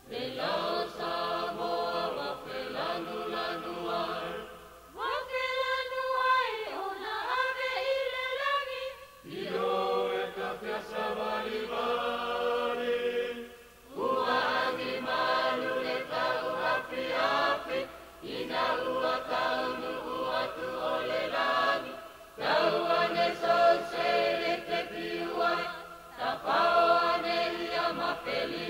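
A group of voices singing a Polynesian chant in phrases a few seconds long, with short breaks between them. About five seconds in, a single voice slides up and down in pitch for a few seconds before the group comes back.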